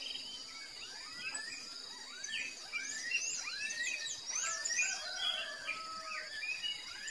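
Several birds chirping and whistling in quick, overlapping calls over a steady high-pitched insect trill, as of crickets.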